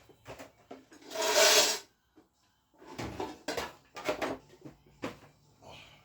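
Workshop handling noises: a loud scraping slide about a second in, followed by a run of short knocks and clatters as something is moved and set down.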